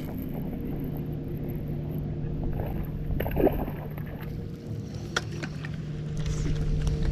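A boat motor running with a steady, even hum, with a few sharp clicks and knocks over it.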